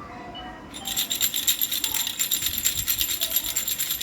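Khulkhula, a baby's rattle toy, shaken rapidly and without pause from about a second in, with a dense, bright jingling rattle.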